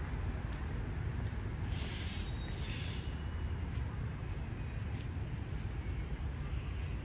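Outdoor ambience: a steady low rumble with faint, short high bird chirps now and then, a little stronger about two to three seconds in.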